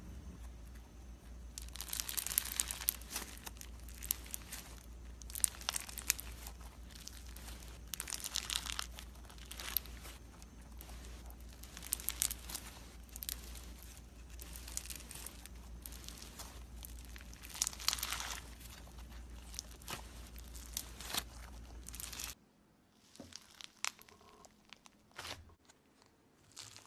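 Slime being squeezed and pulled by hand, making crackly, crinkling bursts every second or two, over a low steady hum. The sound cuts off abruptly about 22 seconds in, leaving only a few soft clicks.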